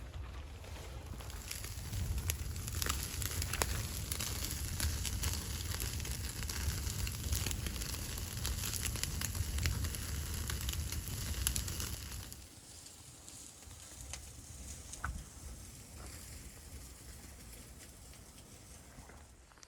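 Wood fire crackling, with a steady hiss and many sharp pops. It quietens suddenly about twelve seconds in, leaving only a few scattered pops.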